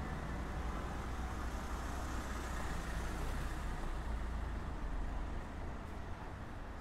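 City street traffic: a low engine rumble of passing vehicles over a steady wash of road noise. The rumble eases about five seconds in.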